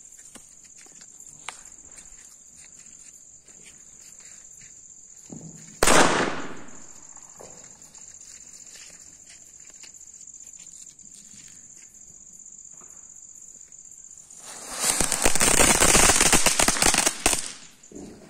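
Crickets chirring steadily throughout. About six seconds in, a single sharp firecracker bang. Near the end, a cone-shaped flowerpot (anar) firework hisses and crackles loudly for about three seconds while it sprays sparks, then stops abruptly.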